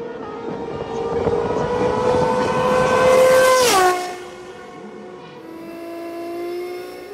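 Turismo Carretera race car passing at speed: the engine note climbs and grows louder, then drops sharply in pitch as the car goes by a little under four seconds in. After that a quieter engine note rises slowly in pitch as a car accelerates, heard from on board.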